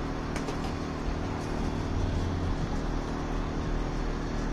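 Steady background hum and hiss of machinery, with a few faint clicks.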